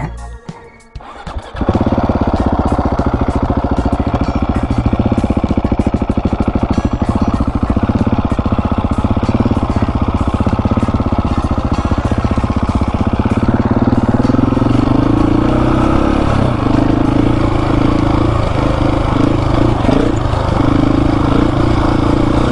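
Husqvarna 701 Supermoto's single-cylinder engine running hard under riding. It comes in loud and steady about a second and a half in, and its drone grows stronger past the middle.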